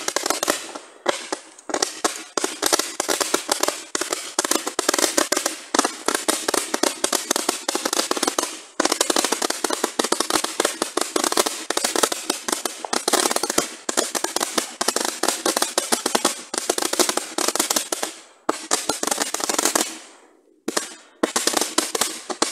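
Fireworks crackling: a dense, continuous run of rapid small pops, breaking off briefly a couple of times about twenty seconds in before starting again.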